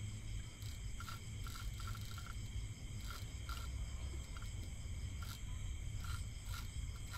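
Steady chorus of night insects and crickets over a low steady hum, with irregular short clicks from the fishing reel as a fish is played on the rod.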